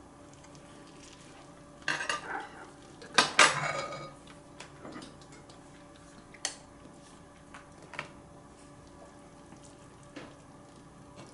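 Metal serving spoon scraping and clinking against an enamelled cast-iron Staub pot and a ceramic rice bowl while scooping rice, with a loud cluster of scrapes and clinks about two to four seconds in, then a few single, lighter clinks.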